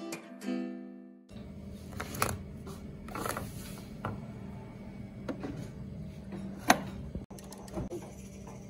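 A soft guitar-backed song ends about a second in. Then come scattered plastic clicks and taps as a Nescafé Dolce Gusto capsule is handled and fitted into the capsule holder of a Dolce Gusto Genio coffee machine, with the sharpest click about two-thirds of the way through. A low steady hum sits behind.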